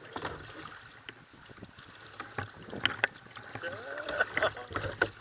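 Sea water slapping and splashing against a kayak, with scattered knocks and taps on the hull, and a short vocal sound about three-quarters of the way through.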